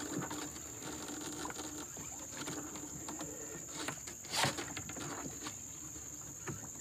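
Steady high-pitched insect drone from the riverside forest, with small wet clicks and patter as a longline is hauled in hand over hand over the boat's bow. There is a brief louder noise about four and a half seconds in.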